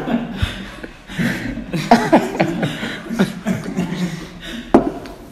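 Men laughing and chuckling, with a single sharp knock near the end.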